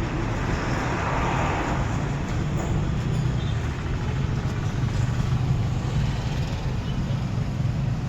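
A machine running with a steady low drone and an even hiss over it.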